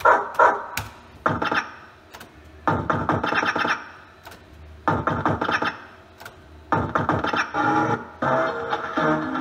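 JPM Tomb Raider fruit machine playing short electronic jingles in about six separate bursts, one every one and a half to two seconds, each starting with sharp clicks and thunks.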